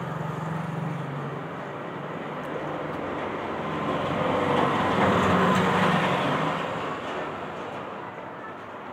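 A passing vehicle: a rushing noise that builds to its loudest about halfway through, then fades away.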